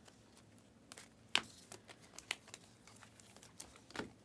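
A stack of Panini Prizm basketball trading cards being flipped through by hand, each card slid from the front of the stack to the back. The result is a few irregular soft flicks and clicks of card against card, the loudest about a second and a half in.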